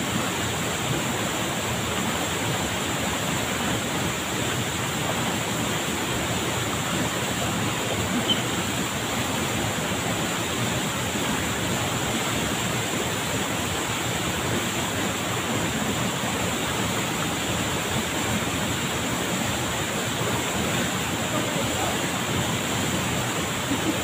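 Waterfall plunging into a rocky pool: a steady, unbroken rush of falling water.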